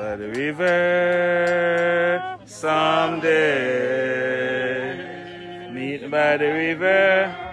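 Voices singing a slow hymn, with notes held for a second or two and short breaks between phrases.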